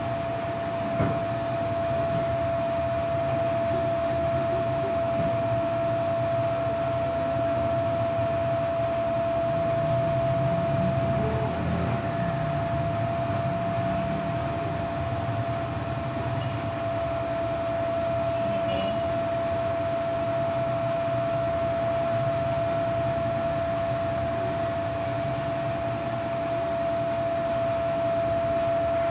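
A steady hum with one constant, unchanging whining tone over a low rumble, running without a break.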